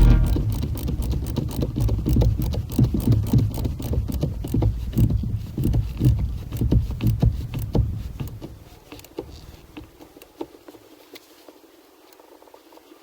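A quick, dense run of clicks and rattles from hand-tool work on the steering-wheel bolt, over a low rumble. It fades after about nine seconds to a few faint clicks.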